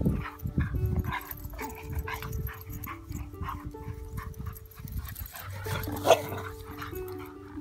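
Background music with held notes that step along like a slow melody, over dogs playing: short dog vocal sounds come and go, with one sharp, loud bark-like sound about six seconds in. Low rumbling noise from wind or handling of the phone runs underneath.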